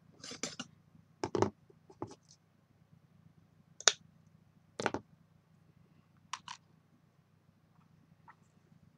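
Scissors cutting a piece of pom-pom ribbon off its roll, with handling sounds of scissors and trim on a craft mat: about six short sharp clicks and knocks spread out, the loudest about four seconds in.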